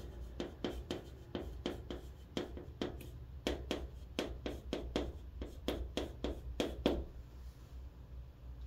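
White chalk writing on a chalkboard: a fast run of sharp taps and short scratchy strokes as letters are written, stopping about seven seconds in.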